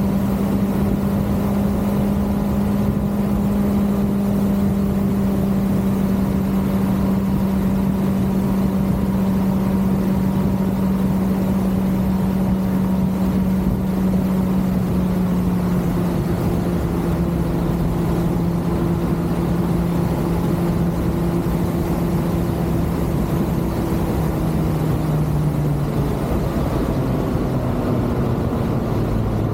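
Kawasaki ZX-6R's inline-four engine running at a steady cruise over wind and road rush. Its pitch sinks slowly as the bike eases off, then steps lower about halfway through and drops further near the end.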